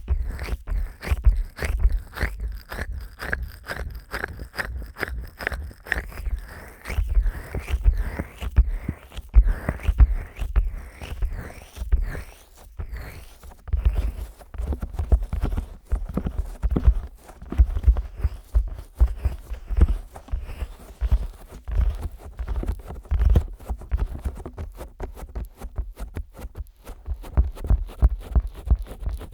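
Fingers rubbing and pressing on the silicone ears of a 3Dio binaural microphone, slick with petroleum jelly: a continuous run of quick close-up strokes, several a second, each with a low thud.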